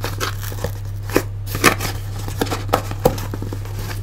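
Cardboard box being pried and torn open by hand: irregular crackles, scrapes and taps over a steady low hum.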